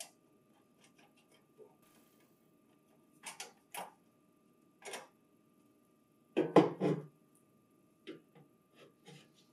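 Sheet-metal controller board shield being worked off the back of a laser printer: light metallic clicks and taps against the chassis, with a louder cluster of knocks as the panel comes free about six and a half seconds in.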